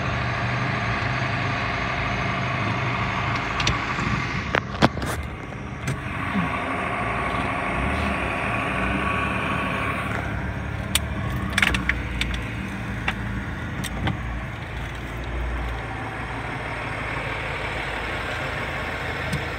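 Motor vehicle engines running steadily, heard from inside a car with a fire engine close by, with a few sharp clicks and knocks scattered through, the loudest about five seconds in.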